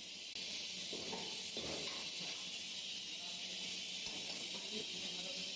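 Chicken pieces in sauce sizzling with a steady high hiss in a hot wok over a gas flame, as they are tossed and stirred with a metal ladle.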